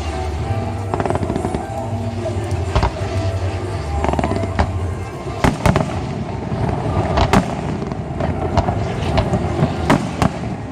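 Aerial fireworks shells bursting, a rapid scatter of sharp bangs that grows thicker from about halfway in, over the show's soundtrack music with a deep bass line.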